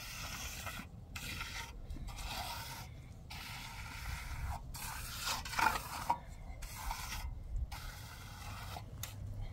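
Repeated scraping strokes, roughly one a second, with short pauses between them and a louder stroke a little past the middle.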